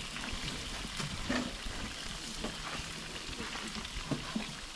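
Meat frying in hot oil: a steady sizzle with scattered small pops and crackles.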